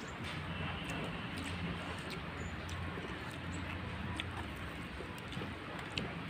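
Eating by hand: rice being mixed on steel plates and chewed, with scattered small clicks of fingers and food against the plates, over a steady low background hum.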